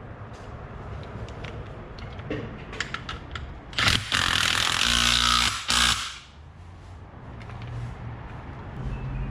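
Power impact wrench run in a loud burst of about two seconds, then a short second burst, tightening a bolt on a newly fitted front strut, with light clicks of tool handling before it.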